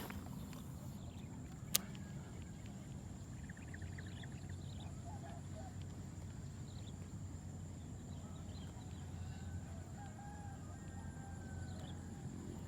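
A rooster crowing faintly, a couple of times, over a steady low hum, with one sharp click about two seconds in.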